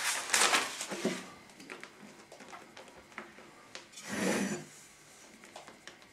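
Flour being scooped and sprinkled onto a wooden worktop: scratchy rustling and scraping in the first second and again about four seconds in, with a few light knocks between.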